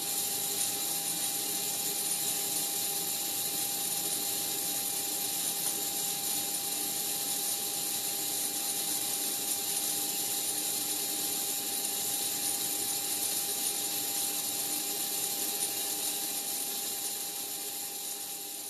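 Steady motor-like whir with a constant mid-pitched hum from the running avionics bench setup, the navigation computer and the indicator's servo-driven counters. It fades out near the end.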